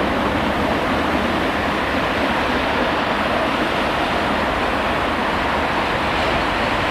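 Steady rushing rumble of a freight train rolling past, its wagons running on the rails, with no clear engine note.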